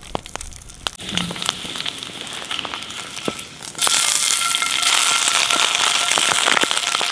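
Slices of lard frying in a hot pan, sizzling and spitting with many small pops. The sizzle grows much louder and denser about four seconds in.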